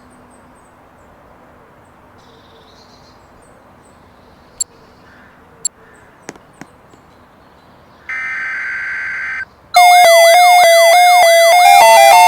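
Emergency alert broadcast tones: a short burst of data tones about eight seconds in, then from about ten seconds a loud electronic alert signal of repeating rising-and-falling sweeps over steady tones that switch back and forth between two pitches. Before that, only a faint hiss with a few scattered clicks.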